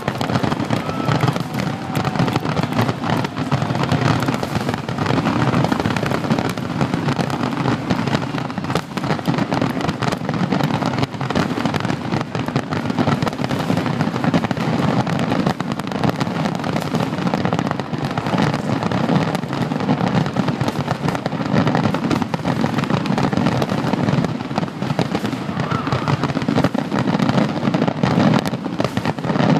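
Fireworks finale: aerial shells bursting in a dense, unbroken string of bangs, one on top of another, with no let-up.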